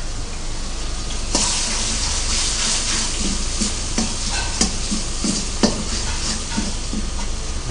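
Garlic sauce sizzling in a hot wok on a gas burner while a steel ladle stirs it, knocking and scraping against the wok several times. The sizzle grows louder about a second and a half in.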